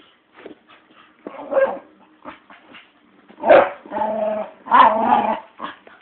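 Staffordshire bull terrier making strange, drawn-out vocal noises in several pitched bursts, a short one and then three louder ones in quick succession, asking to play.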